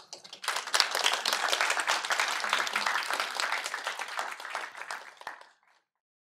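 Audience applauding: many hands clapping together, starting about half a second in and dying away after about five seconds.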